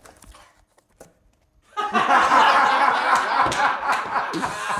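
A quiet pause with a faint click, then about two seconds in a small group of people breaks out laughing, continuing loudly.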